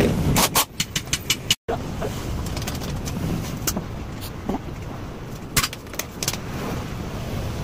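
Scattered metal clinks and knocks of tools and parts during a motorcycle rear shock absorber change, several in quick succession in the first second and a half, then a few single ones, over a steady background hum.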